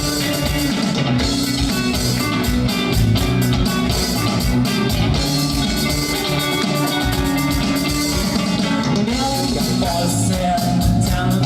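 A rock band playing live: guitar over a steady drum-kit beat, with a voice singing near the end.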